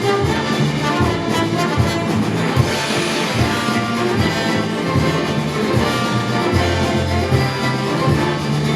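Symphony orchestra playing film music at full volume, brass to the fore over a driving, repeated low rhythm.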